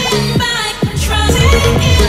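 Pop music with singing over a steady kick-drum beat, about two beats a second.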